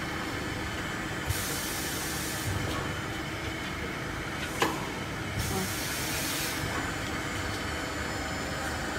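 Automatic double-end chamfering machine running steadily, with a hiss of about a second twice, some four seconds apart. About halfway through there is one sharp metallic clank.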